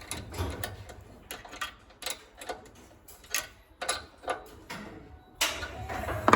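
Irregular metal clicks, about two or three a second, as a spanner works the nuts on the tension roller assembly of a Pallmann Cobra floor sander. A louder, steadier noise starts suddenly near the end.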